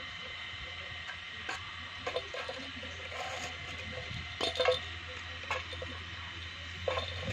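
Scattered light clicks and taps on a rusty metal pan as a kitten paws at a toy in it, the loudest pair about four and a half seconds in.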